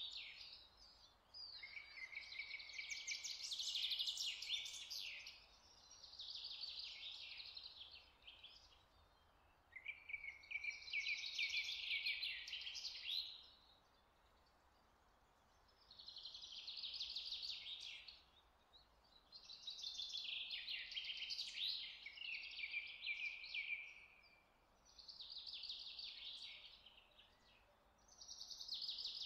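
A bird singing in repeated phrases of rapid high chirps and trills, each phrase two to three seconds long with short pauses between.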